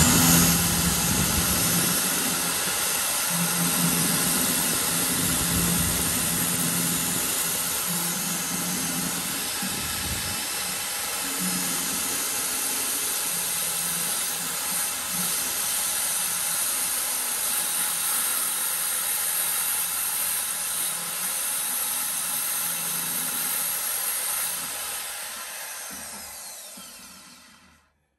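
Bosch CSB 650 electric drill running steadily as a metal drill bit bores into a steel screw to drill it out. The motor winds down and stops near the end.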